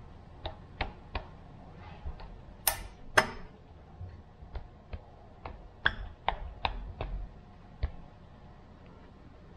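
Irregular sharp metallic clicks and taps of parts being handled on a Subaru 2.5L single-cam cylinder head, about fifteen in all, the loudest pair about three seconds in.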